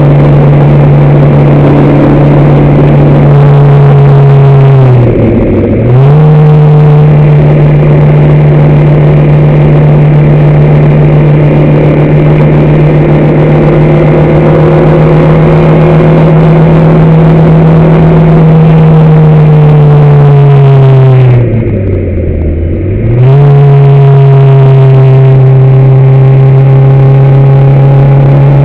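Racing vehicle's engine heard on board, loud and holding a steady high note; the throttle comes off briefly about five seconds in and for longer around 21 to 23 seconds in, the pitch dropping and then climbing back each time.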